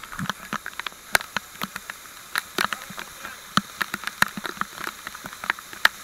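Waterfall water pouring down and spattering directly onto the camera: a steady rush with many irregular sharp hits from drops and splashes striking close to the microphone.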